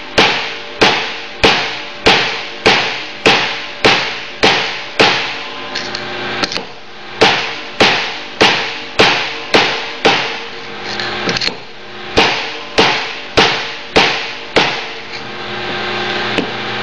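Hammer blows on a steel driver tube, tapping a new wear sleeve onto the input pinion shaft of a Cone Drive worm gear reducer. The strikes are steady, a little under two a second, each with a short metallic ring, in three runs broken by brief pauses.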